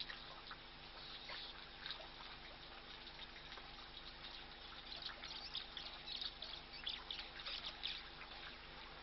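Water trickling and splashing as African elephants draw water with their trunks at a waterhole, a patter of small splashes that gets busier about halfway in. A faint steady hum runs underneath.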